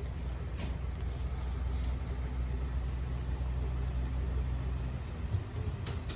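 Diesel train running through the level crossing: a steady low engine note that drops away about five seconds in.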